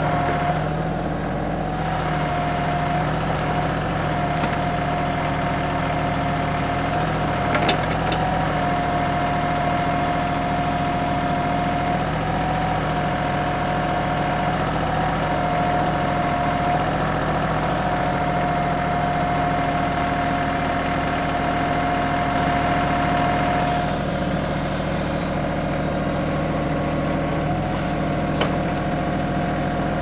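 A TYM 2515H compact diesel tractor running steadily under load while working its backhoe, with a steady whine over the engine. A single sharp knock comes about eight seconds in, and a smaller one near the end.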